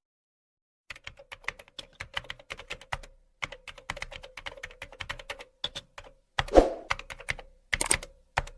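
Rapid computer keyboard typing, starting about a second in: quick runs of key clicks with short pauses, and one heavier keystroke past the middle.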